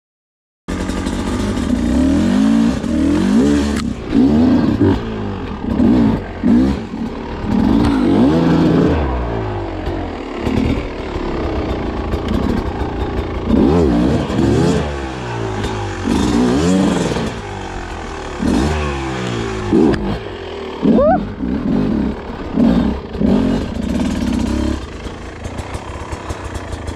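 Beta 250 two-stroke enduro motorcycle engine under riding, revving up and falling back over and over as the throttle is worked. It starts abruptly under a second in.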